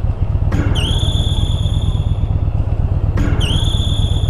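Cruiser motorcycle engine running steadily at low revs with an even low pulsing. A high, clear tone sounds twice over it, each dipping briefly in pitch as it starts and then holding for a second or two.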